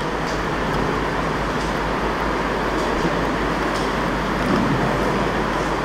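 Steady background rush of noise with a few faint clicks, without speech.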